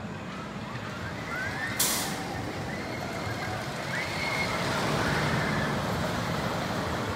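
Hurler wooden roller coaster train rumbling along its wooden track, growing louder from about four seconds in. A short, sharp hiss sounds about two seconds in.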